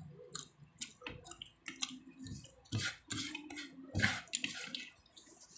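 A person eating by hand close to the microphone: irregular wet clicks and smacks of chewing and of fingers picking squid adobo from a plate.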